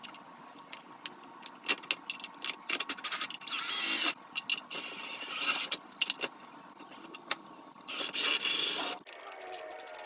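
Drill with a socket extension spinning lock nuts onto carriage bolts in a few short whirring bursts, the longest about a second, with clicks and clatter of hand tools on the metal chair mechanism in between.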